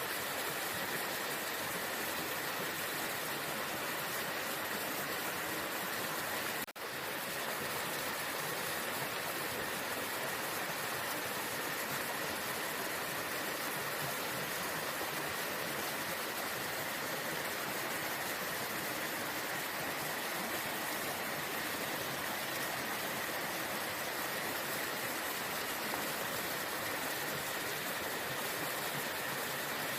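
Waterfall running steadily: an even, unbroken rush of falling water, with a momentary dropout about seven seconds in.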